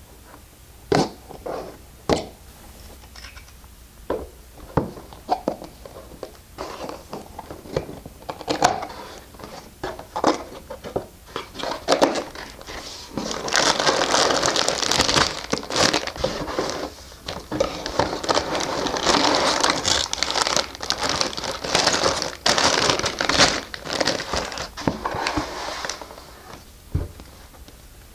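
Plastic LEGO parts bags being handled and opened: scattered sharp clicks and rustles at first, then, from about halfway in, some twelve seconds of continuous crinkling and crumpling of the plastic.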